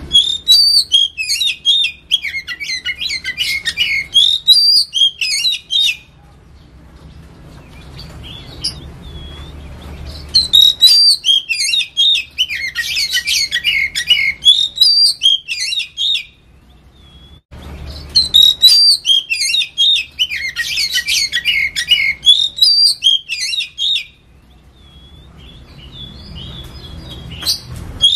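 Oriental magpie-robin singing: three long bouts of rapid, varied high whistles and chattering notes, each about five or six seconds, separated by short pauses with a few single whistled notes, and a new bout starting near the end.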